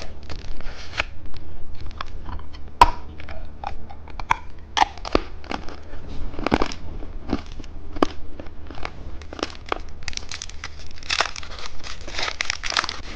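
Plastic candy packaging being handled and unwrapped: crinkling and crackling with scattered sharp clicks, densest over the last few seconds, mixed with crunching.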